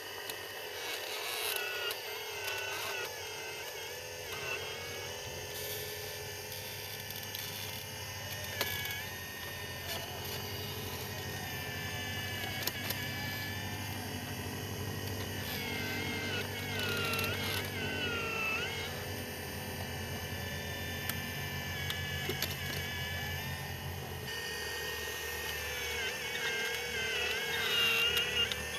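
Electric motors of radio-controlled model excavators whining while they dig and swing. The pitch wavers up and down as the arms work under changing load, with a few scattered clicks.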